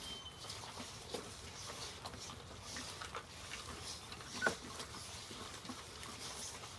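A litter of mastiff puppies chewing and gnawing at a ham together: irregular wet smacks and small clicks, with one louder snap about four and a half seconds in.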